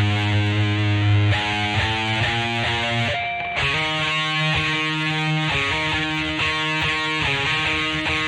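Greco EG-550 electric guitar played through a Peavey Vypyr VIP 2 modelling amp with a distorted tone, held chords and single notes changing about every second, with a brief let-up about three seconds in.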